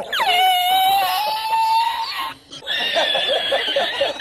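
A man laughing hard in long, high-pitched squealing peals, with a short break for breath about halfway through before the laughter starts again.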